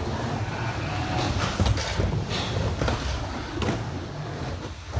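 Skateboard wheels rolling with a steady low rumble, broken by a few sharp clacks of the board.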